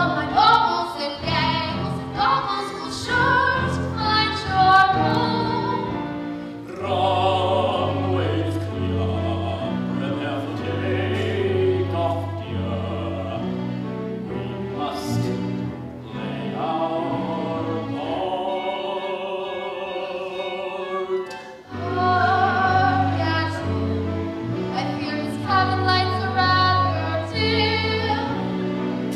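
A stage-musical cast singing a group number, a chorus of voices over instrumental accompaniment.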